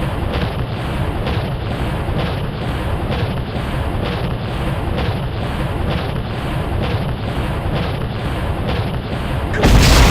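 Synthetic zapping sound effect: a steady, dense rumbling noise that pulses about one and a half times a second, jumping suddenly louder near the end.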